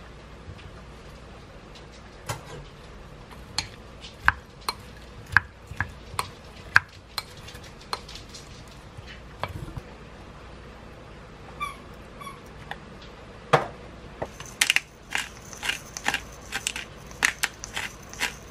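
Food prep in a glass bowl: a kitchen knife and utensils tap and scrape against the glass as chopped onion and cherry tomatoes go in, with scattered light clicks and one brief ringing tap. In the last few seconds a pepper grinder is twisted over the bowl, a quick run of crunching clicks.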